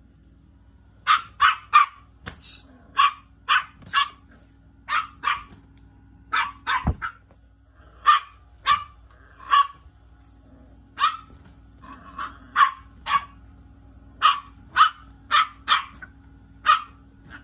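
Small long-haired dog barking sharply and repeatedly, in quick runs of two or three high barks with short gaps between.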